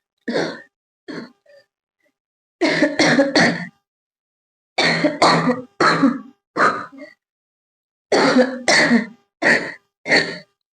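A girl coughing about a dozen times, singly and in quick fits of two or three, with short silent gaps between. The coughs are deliberate, forced ones for a coughing challenge, made whether or not a real cough comes.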